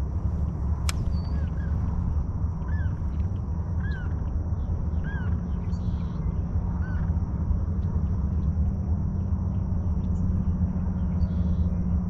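A steady low engine rumble. Over it a bird gives short calls, each rising then falling, about once a second, and they stop about seven seconds in.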